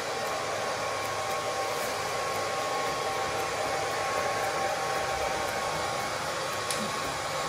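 Handheld hair dryer blowing on a wet puppy's coat: a steady rush of air with a faint steady whine.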